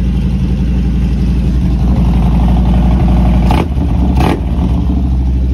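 Harley-Davidson touring motorcycle's V-twin engine idling steadily, swelling a little in the middle, with two brief knocks about three and a half and four seconds in.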